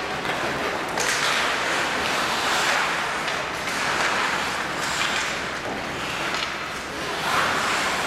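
Ice hockey play echoing in a rink: a steady hiss of skates scraping the ice that swells now and then, with a few sharp clacks of sticks and puck.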